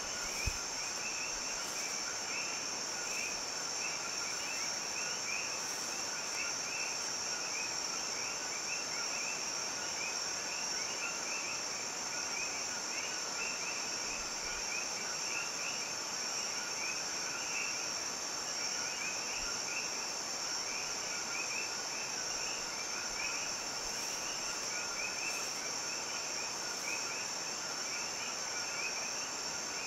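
Steady insect chorus: a continuous high-pitched drone over a lower layer of fast, busy chirring. There is one soft thump about half a second in.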